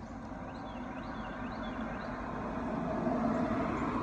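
A road vehicle passing by, its noise growing louder to a peak about three seconds in and then starting to fade.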